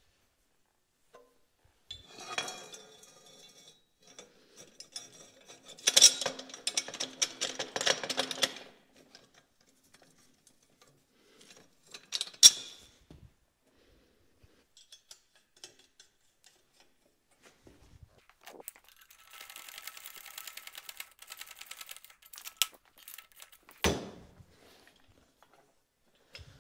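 Steel tubing and brackets of a homemade bead breaker clanking and rattling in several bouts as the lever arm is fitted into its hitch-mounted pivot bracket. There is a sharp metal knock about twelve seconds in and a duller thump near the end.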